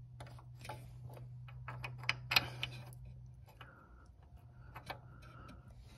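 Light metal clicks and scrapes as a parking brake cable end is worked and slid into place in the rear brake's parking brake lever, with a louder scrape a little after two seconds in. A low steady hum sits underneath and fades about halfway.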